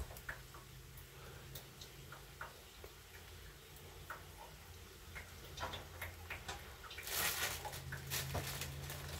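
Quiet kitchen handling sounds: scattered small clicks and taps over a low steady hum, with a brief louder burst of noise about seven seconds in.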